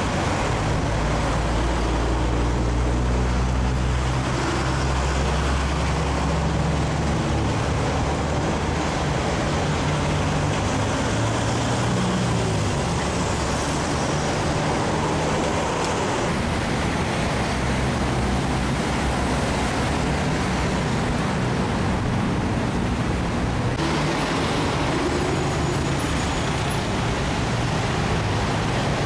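Steady road traffic: cars and pickups driving past, with a low engine hum rising and falling as they go by.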